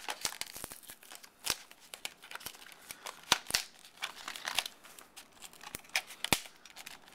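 Stiff plastic blister packaging of a phone case crinkling and crackling as it is pried open by hand, with irregular sharp clicks and snaps.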